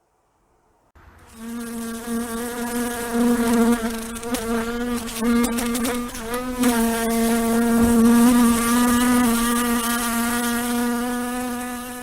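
A fly buzzing in flight: one steady buzz that starts about a second in and keeps on, its pitch wavering briefly around the middle.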